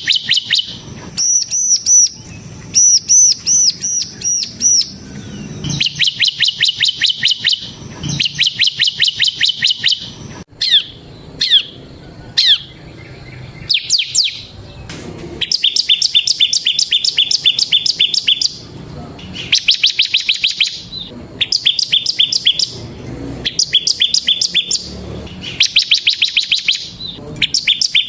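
Bar-winged prinia (ciblek) singing its fast, drilling song: rapid trills of repeated high notes in bursts of one to two seconds, with a few single sweeping notes in the middle.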